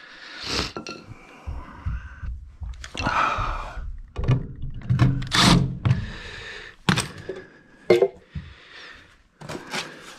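Irregular knocks, clicks and scraping of hand tools and parts being handled, with a few sharp clicks in the second half.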